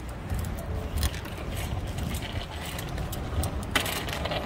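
Child's small bicycle with training wheels rolling over pavement, the training wheels rattling and scraping, over a low rumble. A louder rush of noise comes in near the end.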